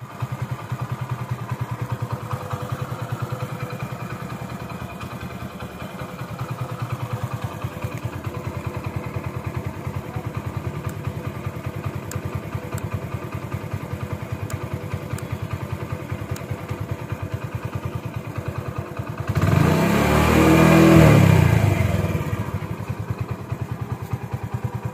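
Honda Pridor's 100cc single-cylinder four-stroke engine idling with a steady, rapid putter. About nineteen seconds in, the engine sound swells louder for about three seconds, then falls back to idle.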